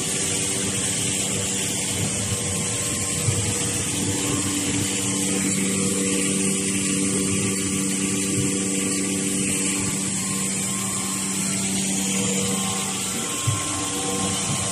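V-fold facial tissue production line machinery running: a steady mechanical hum over a constant hiss, with a couple of light clicks.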